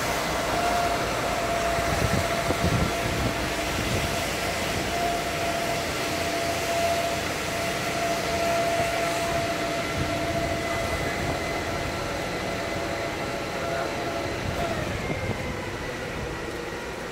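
Street-cleaning machines running: a steady high whine over a low engine rumble, growing fainter toward the end.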